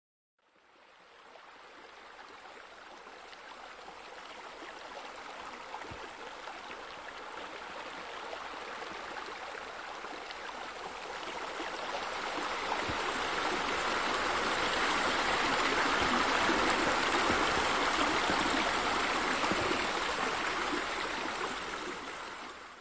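Steady rush of water from sheer-descent water features spilling off a raised pool wall into a pool. It fades in, grows louder toward the latter half and fades out near the end.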